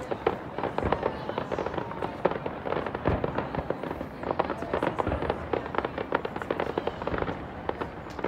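Fireworks going off in a dense, continuous crackle of many small pops, with a few deeper bangs about every two seconds.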